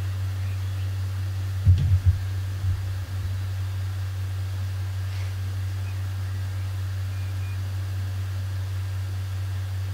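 Dull knocks and clatter of the plastic battery tray being handled and set down, twice in quick succession about two seconds in and once more about three seconds in, over a steady low hum.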